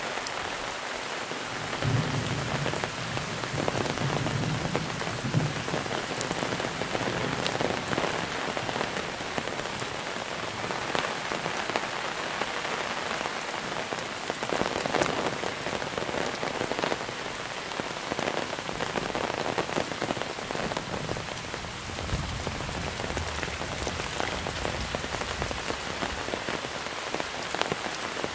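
Monsoon rain falling steadily: a dense, even hiss with individual drops tapping throughout. A low rumble swells under it briefly twice, a couple of seconds in and again in the last third.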